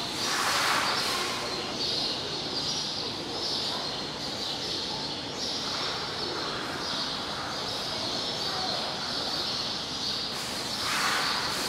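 Continuous bird chirping, with two short, louder rushes of noise in the first second and shortly before the end.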